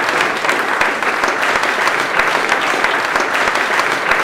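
Crowd applauding: many hands clapping at once in a dense, steady patter.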